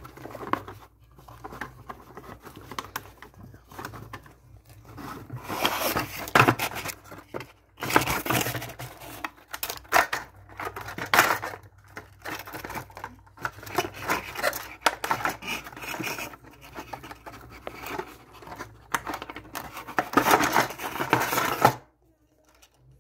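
A model kit's clear plastic tray insert and cardboard packaging being handled as the car body is worked free: irregular crinkling, scraping and rustling in bursts, stopping abruptly near the end.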